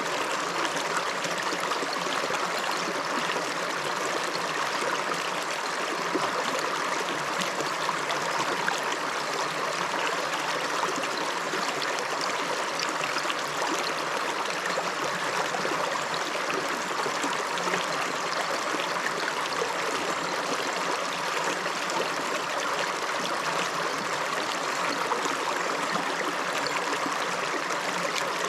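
A river running over stones, a steady rushing and babbling of flowing water.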